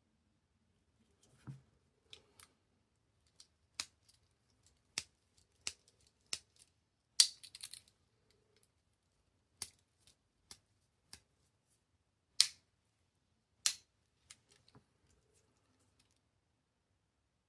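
Victorinox Spartan Swiss Army knife's blades and tools snapping open and shut on their backsprings: a string of sharp, irregular clicks, the loudest a little past a third of the way in and two more near the end.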